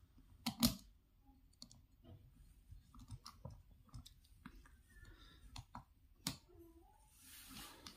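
Faint clicks and light scrapes of a small screwdriver tightening a terminal screw on a plastic 5-pin socket board while the wire is held in place, with two sharper clicks about half a second in and about six seconds in.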